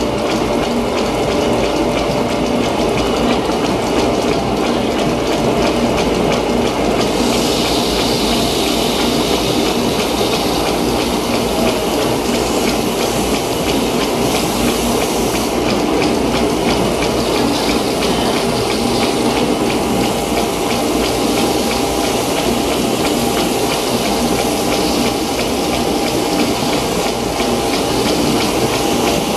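A 1933 working-model Fourdrinier paper machine running: vacuum pumps and water on the forming wire make a steady rush, over a fast, even clatter from the machine's drive. A brighter hiss rises about seven seconds in and drops back about eight seconds later.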